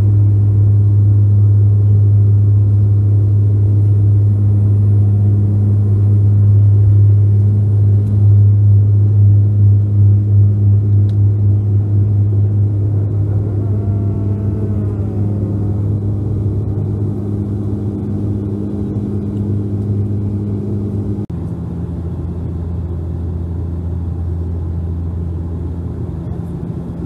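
Cabin drone of a Bombardier Dash 8 Q400 turboprop at takeoff power during the takeoff roll and climb-out: a steady low hum from its six-bladed propellers that pulses for a few seconds, with a faint falling whine near the middle. About three-quarters through, it switches abruptly to a quieter, slightly lower cabin drone.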